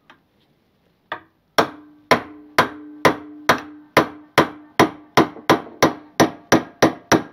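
Hammer blows on a chisel wedged behind the old lower steering-stem bearing's inner race on a motorcycle lower yoke, driving the race up the stem to remove it. A light tap, then about fifteen sharp metallic strikes that come quicker as they go, the earlier ones leaving the steel ringing.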